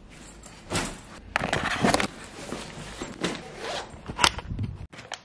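Rustling and scraping handling noise as things are picked up and moved close to the microphone, with scattered clicks and one sharp knock about four seconds in.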